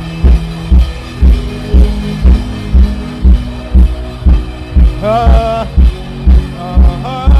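Worship music with a drum kit, a deep kick drum beating steadily about twice a second under sustained chords. A voice sings a short wavering phrase about five seconds in and again near the end.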